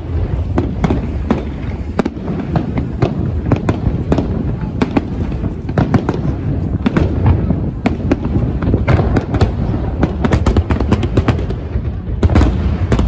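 Aerial fireworks going off: a rapid, irregular string of bangs and crackles over a constant low rumble, growing busier in the last few seconds.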